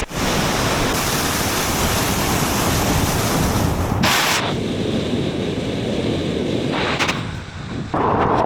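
Mae Sa Waterfall's water rushing: a steady, loud wash of noise. Its tone changes abruptly a few times, about four, seven and eight seconds in, with a brief dip just before the last change.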